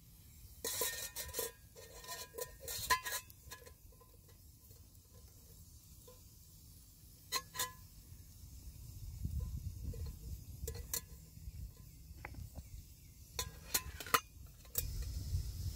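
Stainless steel camp pot clinking and scraping as a wire stand and a loaf pan are fitted inside it. A run of ringing metal clinks comes in the first three seconds, then scattered sharp taps and clicks.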